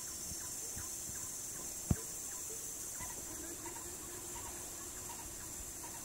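Outdoor ambience: a steady high insect hiss with faint, short, repeated low bird notes, and a single sharp knock about two seconds in.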